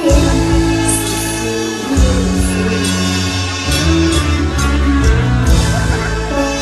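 Live mor lam stage band music, loud and steady, with deep bass notes changing every second or two.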